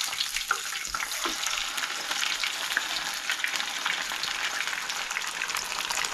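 A whole mochiko-battered fish deep-frying in hot oil in a small saucepan: a steady, dense crackle of bubbling and spattering oil. About the first second has a few brief lower sounds as the fish is turned over with metal tongs.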